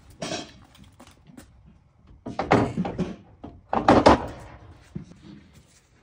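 A few knocks and thumps with some rattle: a short one at the start and two louder clusters about two and a half and four seconds in.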